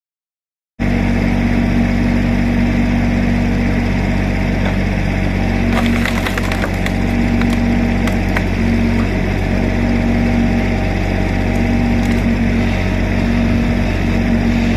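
A Kubota 2.5-tonne mini excavator's diesel engine running steadily, starting suddenly just under a second in. A few sharp clicks come around six to seven seconds in.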